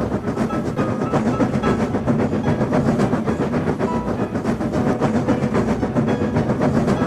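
Train sound effect of a train running along the track: a steady rumble with a fast, even clatter of wheels over the rails.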